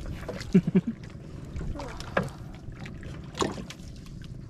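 Short knocks and handling noises on the wooden deck of a small outrigger boat, loudest in a quick cluster about a second in, over a steady wash of wind and water.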